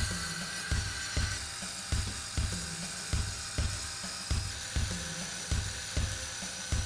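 Diamond-blade circular saw whining as it cuts through a precast concrete panel, over background music with a steady beat of about two and a half beats a second.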